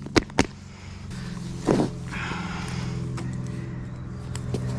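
A motor vehicle's engine running with a steady low hum, growing louder about a second in as it approaches. A couple of sharp clicks come near the start.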